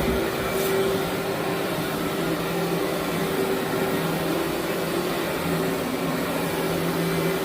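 Vacuum cleaner running steadily on carpet, a constant rushing noise with a steady hum.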